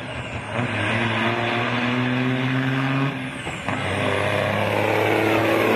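Diesel engine of a loaded semi-truck pulling hard in a drag race, a steady drone that drops out briefly about three seconds in, comes back a little lower in pitch and climbs again toward the end.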